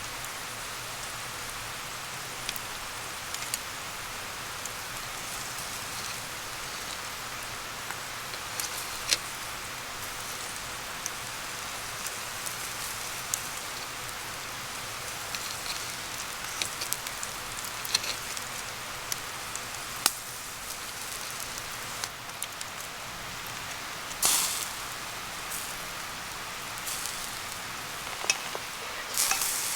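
Wood campfire burning: a steady hiss with scattered sharp crackles and pops, including a louder cluster about twenty-four seconds in.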